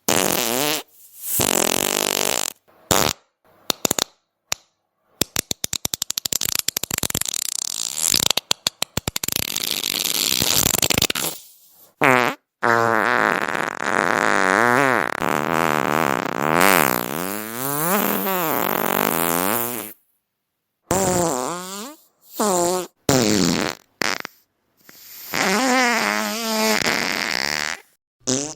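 A rapid series of fart sounds, one after another with short silences between them. Some are quick rattling sputters, others are long, drawn-out ones whose pitch wavers up and down.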